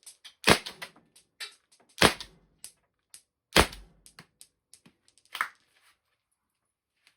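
A CO2-powered Byrna SD launcher firing glass-breaker rounds: four sharp pops about a second and a half apart, the last one weaker, with small clicks and clacks between them as the rounds strike an aluminium pizza pan.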